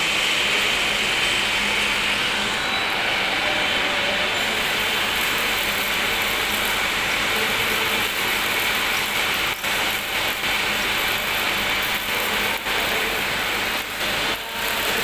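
Electric arc welding: a steady crackling hiss from the welding arc, with a few short breaks in the second half.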